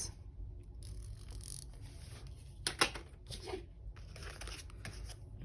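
Paper being handled on a desk: light rustling and a few short crisp sounds, the sharpest a little under three seconds in.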